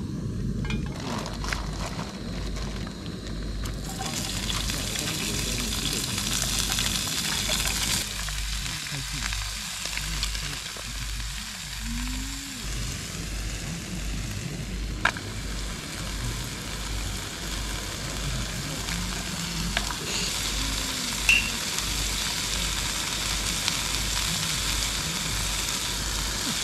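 Bean sprouts and onion sizzling in a frying pan over a gas camp stove on high heat. The sizzle grows louder about four seconds in. A couple of sharp clicks come later.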